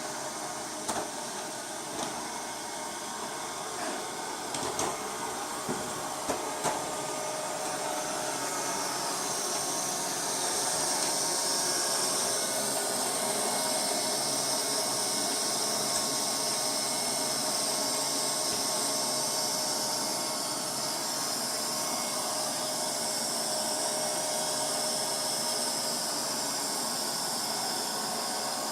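Robot vacuum cleaner running, a steady whir and hiss, with a handful of sharp knocks in the first several seconds.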